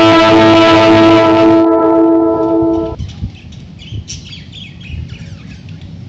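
A loud, held guitar chord from the music track rings and cuts off abruptly about three seconds in. After it, pet budgerigars chirp and chatter softly in short, high calls.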